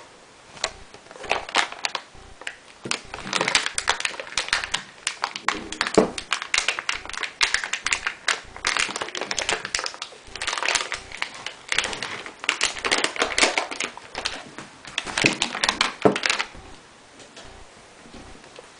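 Plastic packaging crinkling and crackling in irregular handfuls as a hard drive is handled and unwrapped; it stops near the end.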